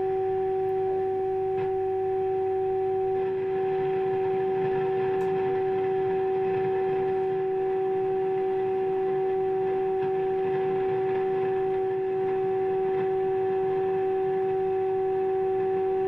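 Steady mid-pitched test tone with one overtone, coming from the speaker of a 1950s UNIC Royal valve radio. It is the signal generator's modulated IF signal passing through the set while the IF transformer cores are peaked during alignment. The loudness dips only slightly, twice.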